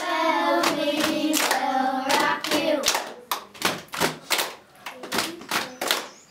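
A group singing together to rhythmic hand claps, about three claps a second. The singing stops about three seconds in and the clapping keeps the beat alone.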